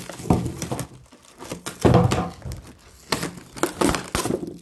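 Plastic wrap crinkling and cardboard packaging rustling as it is handled, in irregular bursts, the loudest about two seconds in.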